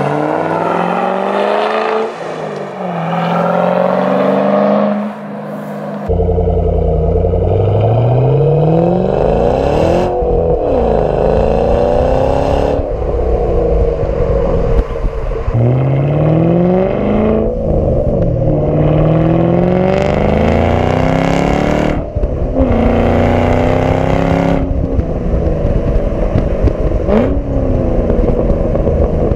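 A 2010 Shelby GT500's supercharged 5.4-litre V8 through its exhaust. It revs as the car drives by, then is heard at the rear exhaust tip under way: repeated accelerations, the pitch climbing through each gear and dropping at the shifts, over a heavy low rumble of wind and road noise.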